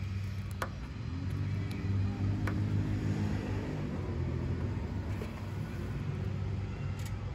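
A motor vehicle engine runs nearby with a low rumble. Its pitch rises a little about a second in and eases back down a few seconds later. Two faint clicks sound over it.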